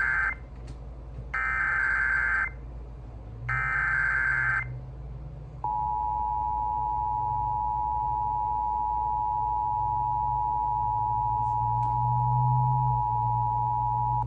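Emergency Alert System header tones: a burst of buzzy SAME data squawk ends just after the start, and two more follow a second apart, each about a second long. From about six seconds in, the steady two-tone EAS attention signal sounds, marking the start of an emergency alert broadcast.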